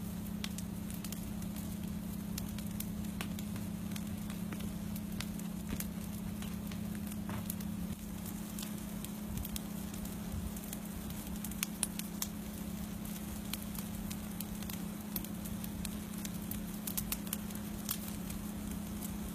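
Wildfire burning in cedar trees and dry grass: a busy crackle of scattered sharp pops, over a steady low hum.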